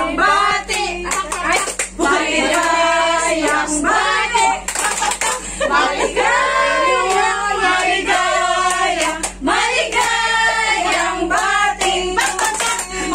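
A group of women singing together and clapping their hands along with the song.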